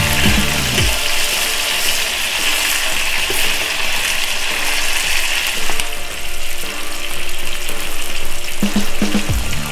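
Sliced ostrich meat sizzling steadily in oil on a cast iron pot lid (sotttukkeong) as it fries.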